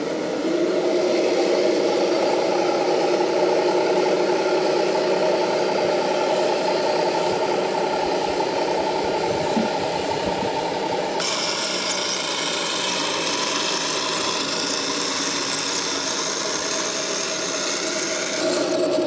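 RC model tank running with a steady, engine-like drone and the hum of its electric drive. About eleven seconds in the sound shifts and a steady high-pitched whine joins it.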